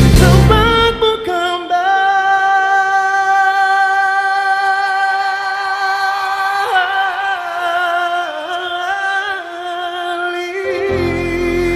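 Live pop music: the band drops out about a second in and a singer holds one long high note with vibrato for about eight seconds, then the band comes back in near the end.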